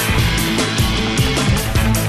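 Background music: an upbeat rock track with guitar and a steady beat.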